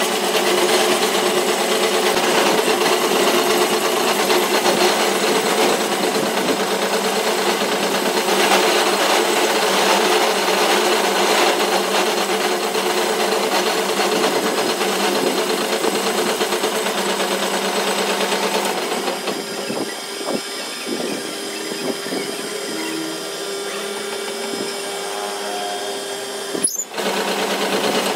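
Metal lathe running and turning down a steel trolley axle tube to bearing size, the cutting tool making a steady grinding hiss over the machine's hum. About two-thirds of the way in the cutting noise eases and the lathe runs on more quietly, with a brief break near the end.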